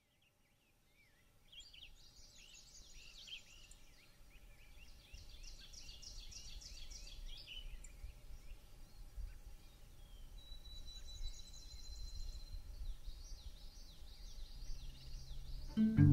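Songbirds singing in woodland, fading in: many overlapping quick high chirps and warbles, with one thin steady high whistle for about two seconds past the middle. Near the end a low music note comes in.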